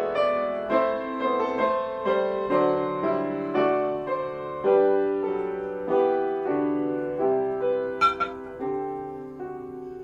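Piano playing a slow melody, each note struck and left to ring and fade.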